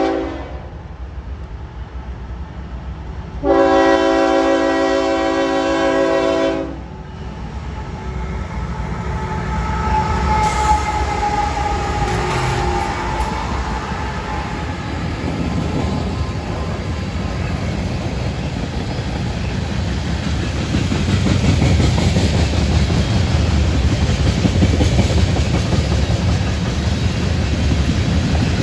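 Air horn of a CSX freight train led by two GE ES44AH locomotives, sounding a chord. The tail of one blast comes right at the start, then a long blast of about three seconds. After that the train rolls past, its rumble and wheel clatter on the rails growing louder toward the end.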